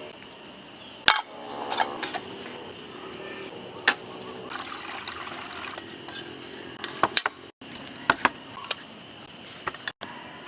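Metal cookware and utensils clinking and clanking: a handful of sharp knocks spread through, the first ringing briefly, over a steady high-pitched background drone.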